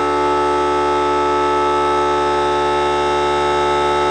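Air compressor motor running with a steady, unwavering whine, building tank pressure back up after the air screwdriver has drawn it down.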